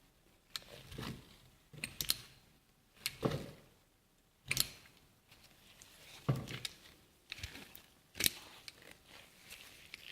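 Sharp clicks and clacks, about one a second, some with a dull thump, from an Audi 3.2 timing chain tensioner being worked by hand; its plunger moves freely with nothing locking it in, and no ratchet engages.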